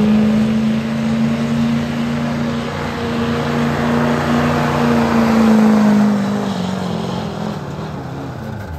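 Pickup truck engine running at full throttle under load while pulling a weight sled, holding a steady high pitch, then sagging and fading as the pull winds down, and cutting off at the very end.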